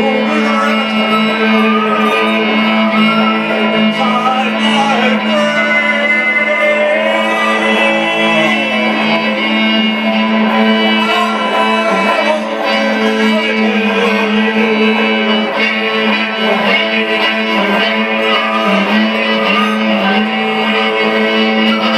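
Live violin playing a bowed, sliding melody over guitar accompaniment, with a steady low note held underneath.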